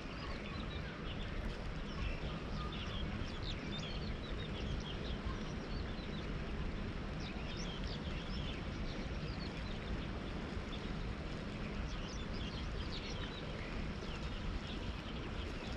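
Outdoor ambience by a river: a steady low background noise with many short, high bird chirps scattered throughout.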